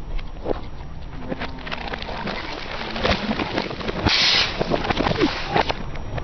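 Plastic bottles filled with liquid crackling and popping as a car tyre crushes them, with a short hiss of liquid spraying out about four seconds in.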